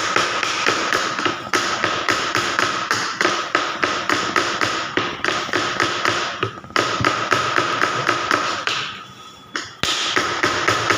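Kitchen knife rapidly chopping onions on a cutting board, about five strokes a second, with a pause of about a second near the end.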